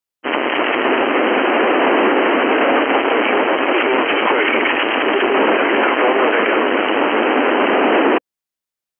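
Static hiss from an 11-metre FM radio receiver, held to a narrow voice band, switching on abruptly and cutting off just as abruptly about eight seconds later, as the receiver's squelch opens and closes.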